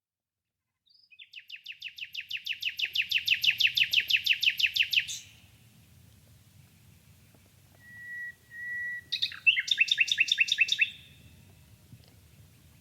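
Common nightingale singing: a fast run of repeated notes, about six a second, swelling in loudness for some four seconds, then after a pause two pure whistled notes followed by another quick run of repeated notes.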